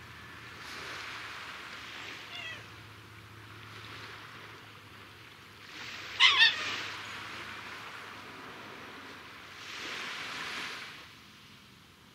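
Small waves washing onto a sandy shore, the surf noise swelling and fading several times. A short animal call sounds faintly about two seconds in, then a louder two-note call about six seconds in, the loudest sound here.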